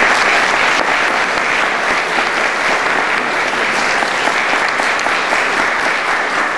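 A seated audience applauding: dense, steady clapping.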